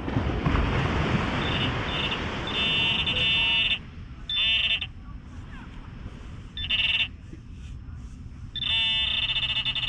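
Metal detector target tones: a buzzy, pitched beep sounds four times, about once every two seconds, as the coil sweeps back and forth over a buried coin. The first few seconds are a loud rushing noise.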